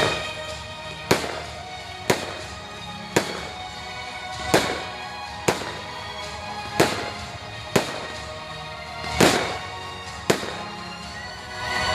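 Fireworks bursting, about nine sharp bangs roughly a second apart, each with a short echoing tail, with music playing underneath.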